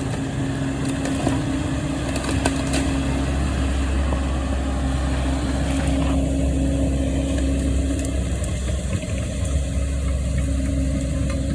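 An engine running steadily at idle, with a few sharp knocks; the higher-pitched noise falls away about six seconds in.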